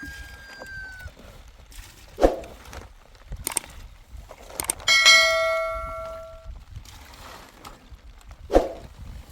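A metal object struck once, ringing with several clashing tones that fade over about a second and a half. Two sharp knocks come a few seconds before and after it.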